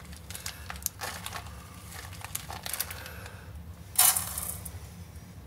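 Rolled oat flakes trickling from a crinkling plastic bag into a ceramic mug, with scattered small crackles. About four seconds in, the mug of flakes is tipped into the multicooker's metal bowl in one loud, short rush.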